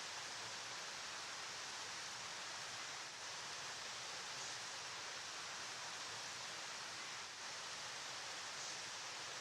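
A river flowing: a steady, even rush of water, mostly hiss.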